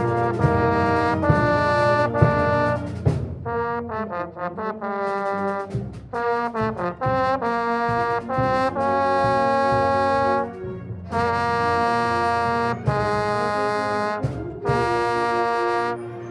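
A band with a strong brass section, trombones to the fore, playing a fanfare in full held chords. A passage of short detached notes comes a few seconds in, and there are brief breaks between the later phrases.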